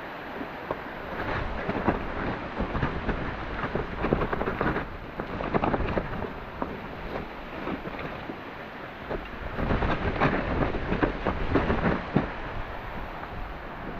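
Mountain bike rattling down a wet, muddy, rocky trail: a steady rush of tyre and air noise broken by many quick knocks and clatters from the bike over rocks and roots, busiest about a second in and again around ten seconds in.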